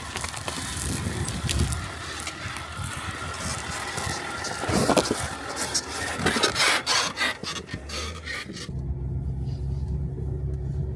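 A 2004 Range Rover L322 squeaking and rubbing as it drives, a scraping, creaking noise with a run of clicks that thickens around six seconds in. About nine seconds in it gives way abruptly to a steady low hum.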